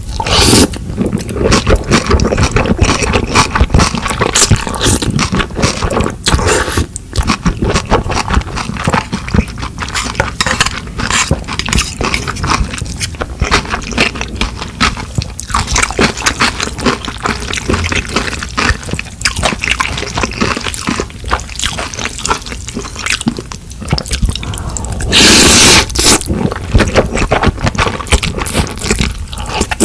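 Close-miked mukbang eating sounds: wet chewing and mouth noises made of many small clicks, with a louder burst of noise about 25 seconds in.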